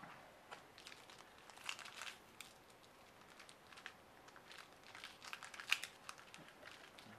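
Foil wrapper of a 2011 Topps Prime football card pack crinkling in gloved hands as it is handled and pulled open. It comes as a run of quick, uneven crackles, loudest about two seconds in and again near six seconds.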